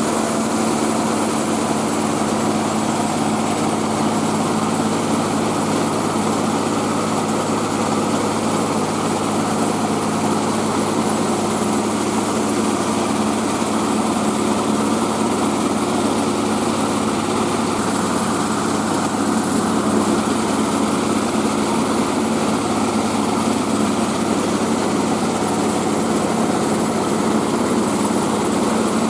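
Mobile rice milling machine running steadily at constant speed: its engine hums beneath a broad, even hiss from the milling machinery.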